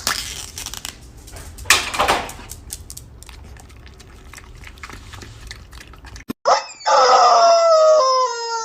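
Dog vocalising: a short loud sound about two seconds in, then, after a cut, a long howl held on one pitch that shifts in small steps.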